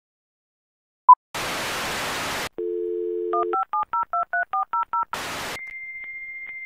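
A short countdown beep, then a burst of static. A telephone dial tone follows, then a quick run of about eight touch-tone (DTMF) keypad beeps, another burst of static near the end, and a steady high tone.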